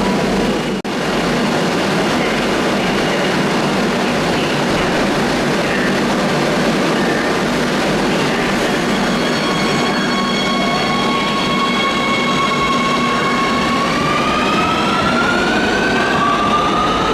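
Madrid Metro Line 2 train running through the station with a steady rumble of wheels on rail. Partway through, its traction motors begin to whine in several tones that hold, then rise in pitch in steps as the train accelerates away.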